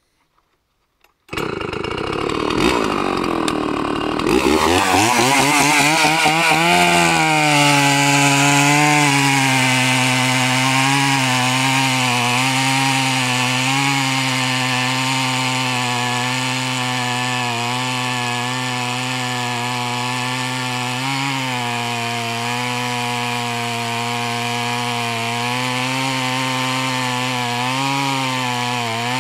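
Husqvarna 61 two-stroke chainsaw with a 28-inch Oregon PowerMatch bar. It comes in suddenly a little over a second in and revs freely, wavering for a few seconds. It then pulls down to a lower, steady note as the bar cuts through a log, holding under load with small dips in speed.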